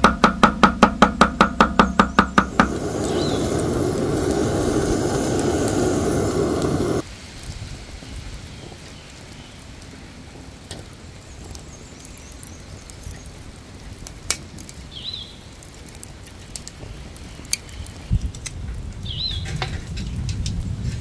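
Knife chopping fast on a wooden board, about six strokes a second, stopping about two and a half seconds in. Then a steady rough noise runs for about four seconds and cuts off suddenly, and a quieter stretch follows with scattered light clicks and a few brief bird chirps.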